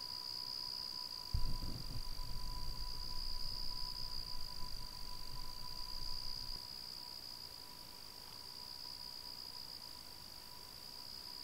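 Crickets trilling steadily in a continuous high-pitched drone, with a fainter, lower steady tone alongside. A low rumble comes in about a second and a half in and fades out after about five seconds.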